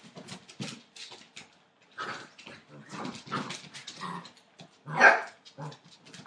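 Entlebucher Mountain Dog puppies play-fighting, giving short barks and growls in quick, irregular bursts, with one louder bark about five seconds in.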